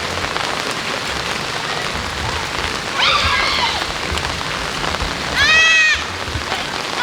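Rain falling steadily in an even hiss, with a person's shout about three seconds in and a louder drawn-out yell near the end.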